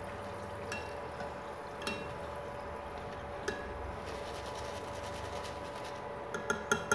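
Wire spider strainer clinking against the rim of a metal kadai while fried potato sticks are lifted out of the oil to drain: a few single ringing clinks, then a quick run of several clinks near the end, over a steady faint hum.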